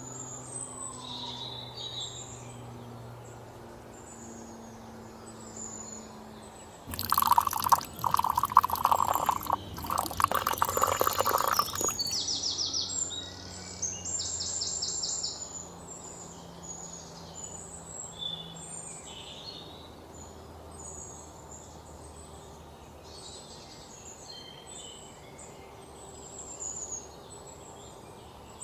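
Birds chirping and calling throughout. About seven seconds in, water pours for roughly five seconds, which is the loudest sound.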